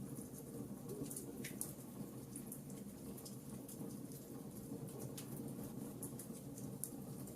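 Wood fire burning in a fireplace: a steady low rush of flames with irregular sharp crackles and pops from the burning logs.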